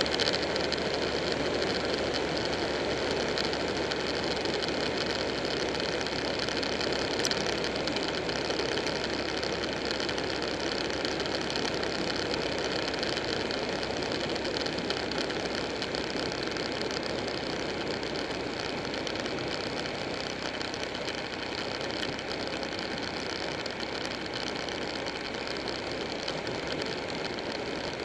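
Buell 1125R motorcycle's V-twin engine running at a steady cruise, mixed with wind and road noise at the bike-mounted camera.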